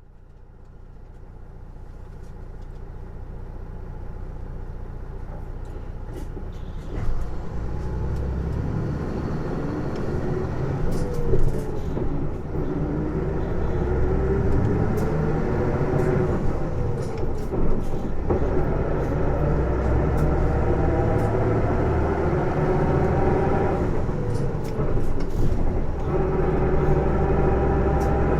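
Isuzu PJ-LV234L1 city bus with Nishi-Nippon Shatai body under way: the diesel engine runs under an unusual whining drivetrain noise that is louder than the engine itself, typical of this bus's abnormal drivetrain sound. The whine rises and falls in pitch several times as the bus pulls away and changes speed.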